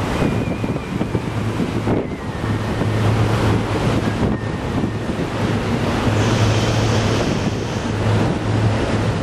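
Wind buffeting the microphone over the wash of choppy sea water, with a steady low hum underneath.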